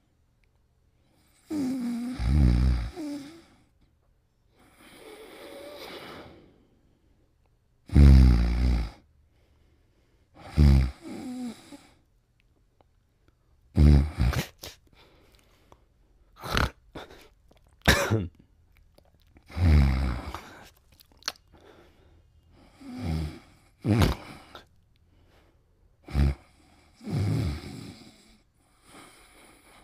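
Cartoon snoring: a run of loud snores and short snorts at irregular intervals, a second or a few seconds apart. Some snores are long and sink in pitch, others are brief sharp snorts.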